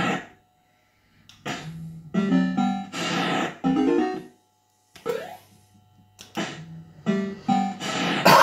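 Bell-Fruit Cash Explosion fruit machine playing its short electronic tunes in bursts during play, with brief silent gaps between them and a few sharp clicks.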